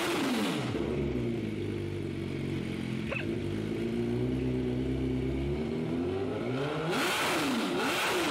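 MV Agusta F4 sportbike's inline-four engine, fitted with an aftermarket twin-can exhaust, revved on the stand: the revs drop back at the start, it idles steadily, then it is blipped quickly a few times near the end.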